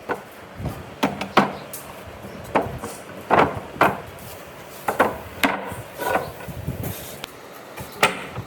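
Wood being knocked: about a dozen sharp, irregularly spaced knocks of wood against wood or a tool, some coming in quick pairs.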